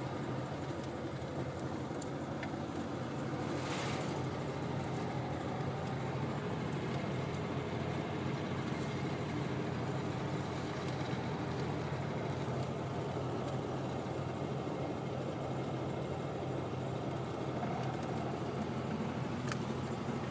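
Car engine and road noise heard from inside the cabin while driving slowly: a steady low hum.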